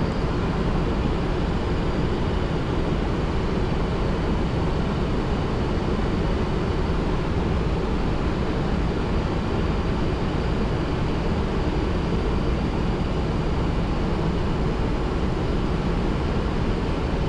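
Steady flight-deck noise of a Boeing 737-800 in flight, an even rushing roar that holds the same level throughout.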